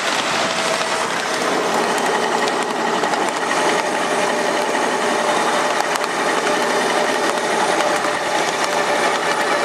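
7.5-inch-gauge ride-on miniature train running along its track, heard from aboard: a steady fast clatter and rattle of wheels and cars on the rails, with a faint steady whine from the drive.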